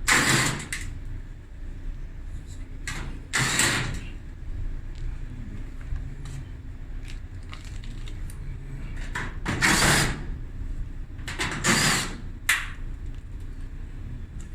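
Cordless drill running in short bursts, about four times, backing screws out of a dryer's cabinet panel.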